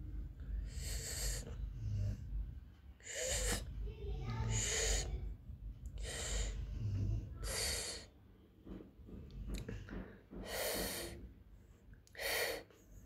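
Breathy sipping sounds made with a person's mouth, about seven short bursts a second or two apart, acting out a doll drinking from a toy teacup.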